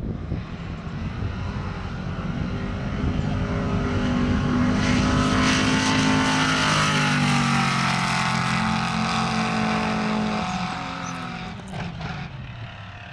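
Pontiac Firebird pro street drag car making a drag run, its engine at full throttle down the strip, loudest as it passes about five seconds in. The engine note falls away abruptly about ten seconds in as it comes off the throttle.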